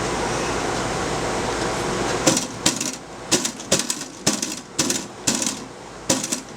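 About ten sharp knocks on an aluminium motorcycle top case, tapping it back along its mounting plate until it seats. For the first two seconds only the steady noise of an air conditioner is heard.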